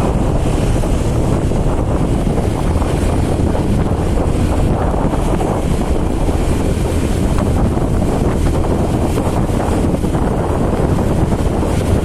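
Heavy wind rumbling steadily on the microphone, a constant low buffeting with no pauses, as from travelling at road speed.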